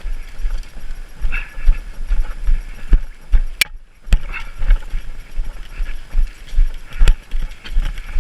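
Heavy, irregular footfalls, about three or four a second, of a player running in kit, thudding close to the microphone, with a few sharp clicks in between.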